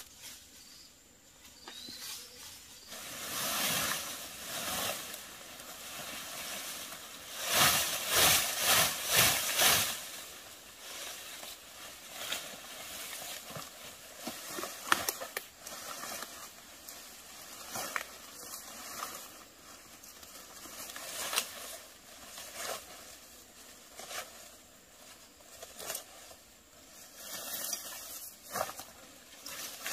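Leafy plants and vines rustling and tearing as they are pulled up by hand, with a run of loud rustles around eight seconds in and sharp cracks now and then.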